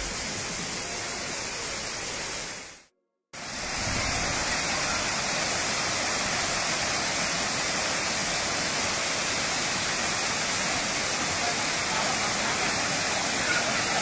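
Waterfall: a steady rush of falling water. The sound cuts out completely for a moment about three seconds in and comes back louder.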